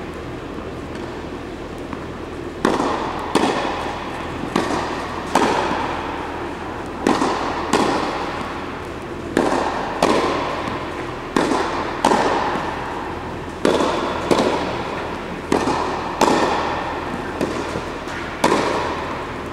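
Tennis rally on a clay court: sharp ball strikes, in pairs roughly every two seconds, each ringing out with echo off the walls around the court.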